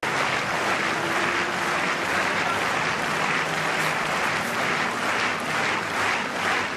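Stadium crowd applauding steadily, with an even beat of rhythmic clapping, about two claps a second, coming through in the second half.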